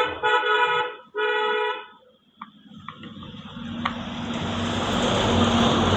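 A vehicle horn honking: two short toots in the first two seconds, right after a longer blast. Over the last three seconds a rising rush of noise with a low hum and a few light clicks builds up.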